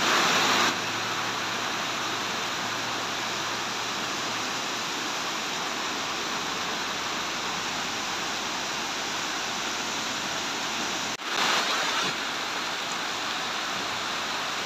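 Heavy rain pouring down steadily, a dense even hiss, briefly louder for a moment just after a short break about eleven seconds in.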